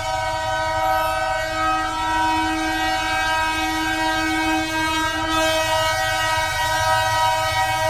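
Diesel locomotive's multi-tone air horn blown continuously as the train approaches, with the low rumble of the locomotive underneath.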